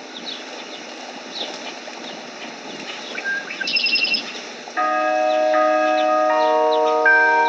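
Birds chirping, with a short trill about four seconds in, then about two-thirds in the Lakeside morning bells begin to ring: a melody of held, overlapping bell tones that come in one after another and are louder than the birds.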